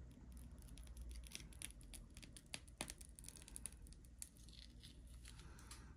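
Faint crackling and clicking as a plastic squeeze bottle of thick white paste is squeezed and the paste is piped out of the nozzle in swirls.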